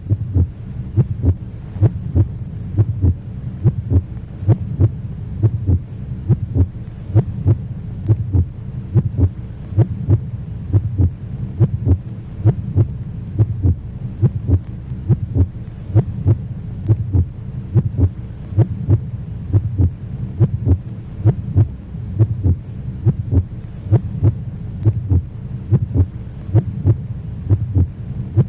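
Heartbeat sound effect: regular low thumps about twice a second over a steady low hum.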